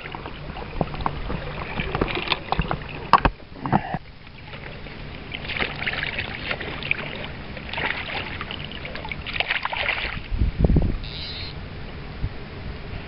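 Water sloshing and splashing around a person's legs as they wade through a river, in irregular surges, with a few knocks and one low thump near the end.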